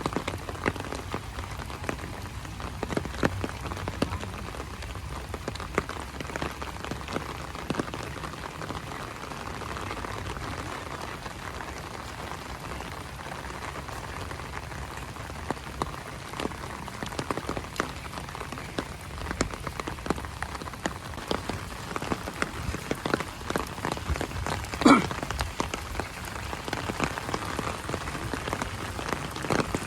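Heavy rain falling steadily, with many sharp drop hits close by. Late on, one loud, short pitched sound cuts through the rain, falling slightly in pitch.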